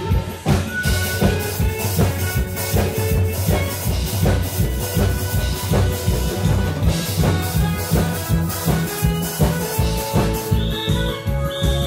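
Upbeat instrumental dance music with a steady, regular drum beat, played partly on live drums: a pair of barrel drums struck with sticks and a drum kit.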